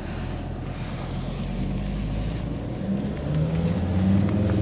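Car engine heard from inside the cabin as the car pulls away and speeds up; its pitch rises in steps over the last couple of seconds.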